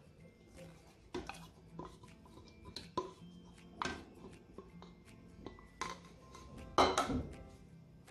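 Scattered light clinks, knocks and scrapes of a ceramic plate and spatula against a plastic blender jar as cream is scraped into it, the loudest a short clatter about seven seconds in as the plate is set down. Faint background music runs underneath.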